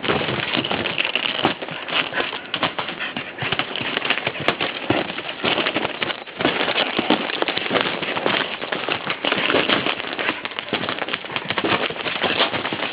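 Footsteps crunching through ice-crusted snow, a steady dense crackling crunch as the icy crust breaks underfoot.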